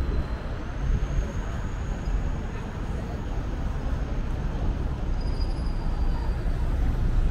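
Street traffic, with cars and motorcycles driving past, making a steady low rumble.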